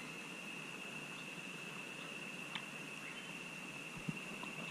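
Quiet outdoor ambience on a calm river: a faint steady high-pitched whine over a soft hiss, with a few light clicks and a small knock about four seconds in.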